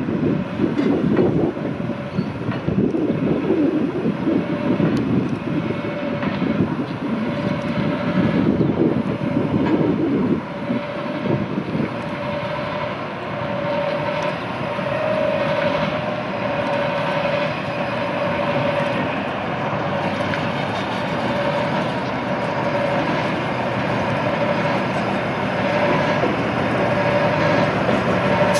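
Two diesel locomotives, Emu Bay class 11 No. 1104 leading DH class DH73, running slowly past with engine noise and wheel clatter on the rails. A steady engine whine grows louder from about halfway through as they draw near.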